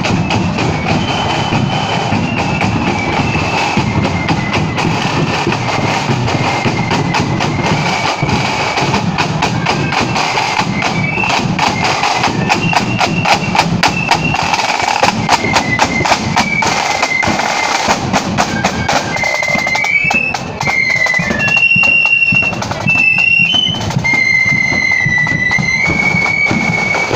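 Flute band playing on the march: a high flute melody over rapid snare drumming and bass drum beats. About twenty seconds in the drums fall away and the flutes carry on mostly alone.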